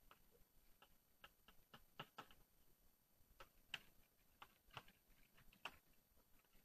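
Faint, irregular taps and short scrapes of chalk on a blackboard as symbols are written, a dozen or more scattered clicks with long gaps of near silence between them.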